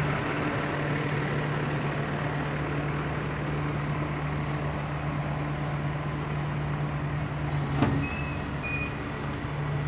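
Truck's diesel engine idling steadily, an even low hum, with one sharp click about eight seconds in.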